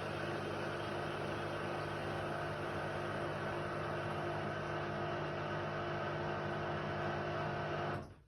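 Indesit WIDL 106 washer-dryer running with a steady mechanical hum of motor tones over a hiss. It cuts off abruptly near the end, leaving a few faint ticks.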